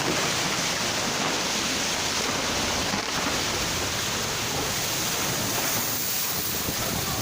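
Floodwater from a landslide rushing down a hillside torrent, a loud steady rush of water with no break.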